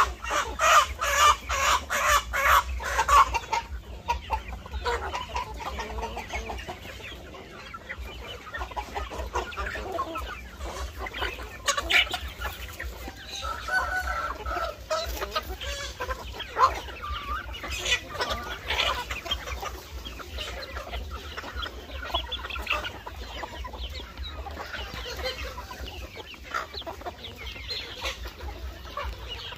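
A flock of chickens clucking as they feed. A quick run of sharp taps is loudest in the first three seconds or so, and short scattered calls follow.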